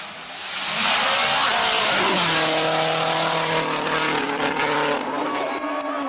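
Rally car engine approaching at high revs, held flat out for a few seconds, its note dropping in pitch about five seconds in.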